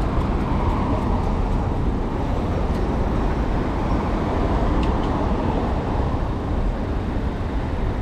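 Steady road-traffic noise mixed with a low rumble of wind on the microphone, heard from a bicycle riding along a city road.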